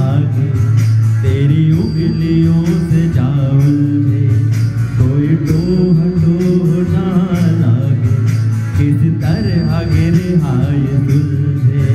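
A man singing a Hindi film song into a handheld microphone over an instrumental backing.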